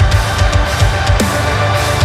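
Heavy metal music with distorted guitar and fast, driving drums.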